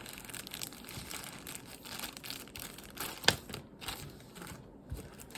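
Plastic packaging crinkling and rustling as it is handled, with scattered small clicks and one sharp, louder click a little past the middle.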